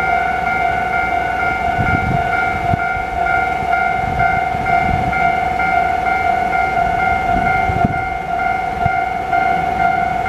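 Electronic warning bells of a Japanese railway level crossing ringing continuously. Two bell units with different pitch and tempo clash out of step. A train passes, with low rumbles under the bells.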